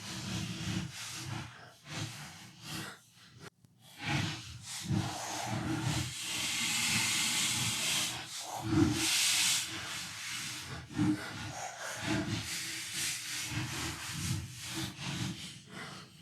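Cleaning spray hissing in several bursts, the longest about two seconds, between short scrubbing strokes on the plastic casing of a PlayStation 4 caked with grime.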